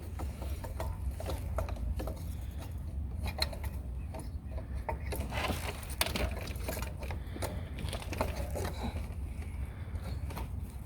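Scattered small clicks and light knocks of hands fitting a new thermostat and gasket into its housing on an engine, over a steady low hum.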